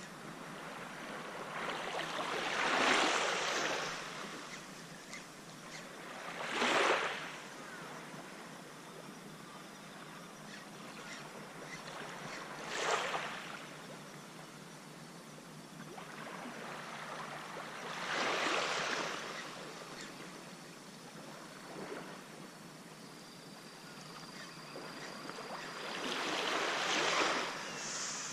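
Small waves washing up on the sandy shoreline and rocks, a soft rush of surf rising and falling every few seconds. A faint high steady tone comes in near the end.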